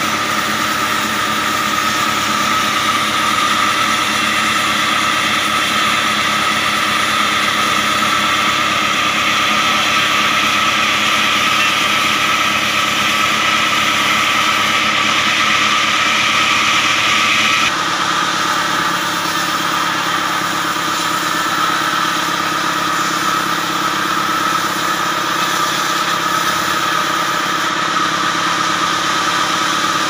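Stationary diesel engine running steadily, driving a band sawmill, with a steady high whine over the engine's running. About eighteen seconds in the sound changes abruptly and its higher hiss drops away.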